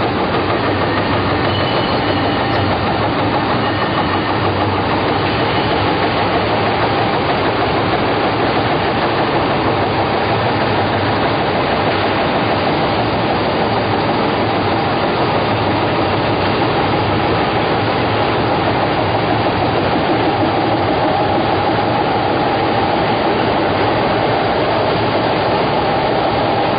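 Baby diaper production machine running: a loud, steady mechanical din that holds without a break.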